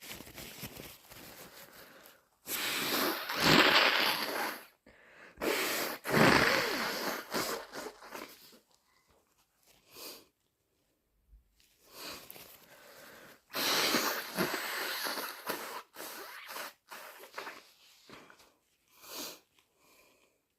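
A person with a head cold sneezing and blowing a congested nose in several long, thick blows, the three loudest lasting two to three seconds each, with quieter breathy sounds between.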